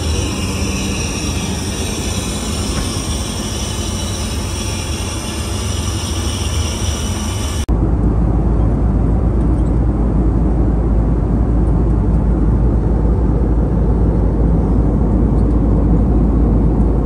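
Steady in-flight noise aboard an Airbus A320neo airliner. First a bright, airy hiss with a faint steady hum in the lavatory, then after an abrupt change about eight seconds in, the louder, deeper rumble of the passenger cabin in flight.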